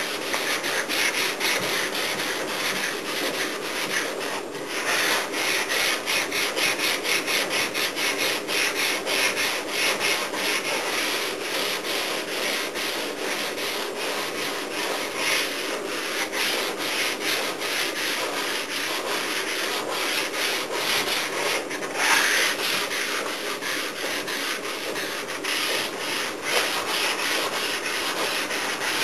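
Hand sanding on a Volkswagen Beetle's body panel: a sanding block rubbing back and forth in quick, even strokes, pausing briefly a couple of times. This is wet sanding, done to find the high and low spots in the repair.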